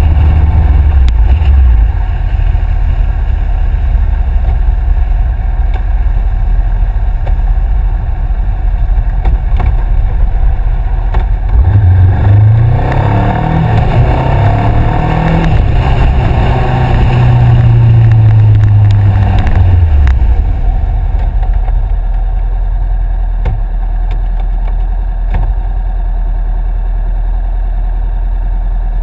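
2013 Honda CBR500R's parallel-twin engine through a Two Brothers aftermarket exhaust: it eases off early, then about twelve seconds in pulls hard under acceleration, its pitch climbing and dipping at the gear changes. After that it backs off and settles to a low, steady idle near the end.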